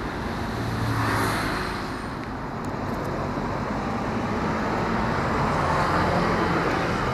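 Steady road traffic noise from vehicles on the adjacent road, swelling as vehicles pass about a second in and again near the end.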